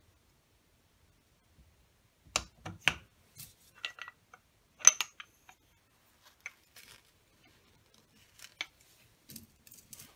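Light metallic clicks and knocks of a piston, connecting rod and gudgeon pin being handled and fitted together, irregular and starting about two seconds in. The sharpest is a single clink about halfway through, with a brief ring.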